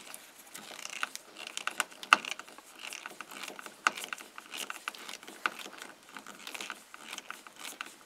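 Screwdriver turning the bottom mounting screw of a self-contained mobile home light switch to draw its mounting tab up, with a run of small irregular clicks and scrapes; the sharpest click comes about two seconds in.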